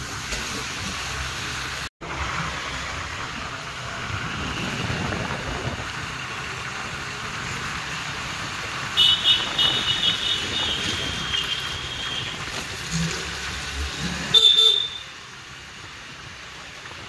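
Steady noise of a road vehicle on the move, with a high-pitched horn honking for about three seconds around nine seconds in and again briefly near fifteen seconds.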